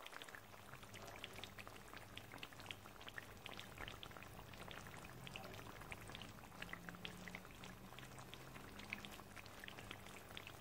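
Faint crackling of chicken karahi's oily gravy still sizzling in the pan: a light, irregular patter of tiny pops over a low steady hum.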